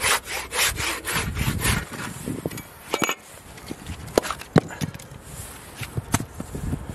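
Handsaw cutting through a firewood log with quick strokes, about four a second, that stop about two seconds in. A few scattered sharp knocks and clicks follow.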